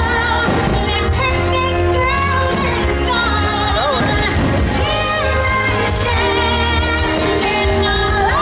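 Fireworks show soundtrack: a pop-style song with singing over a steady bass, played loud, with a few firework bangs mixed in underneath.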